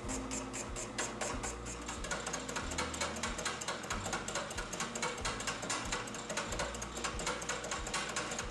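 Face mill on a milling machine taking a cut across a metal plate, making a rapid, even rhythmic clatter as the inserts strike the work. Soft background music plays under it.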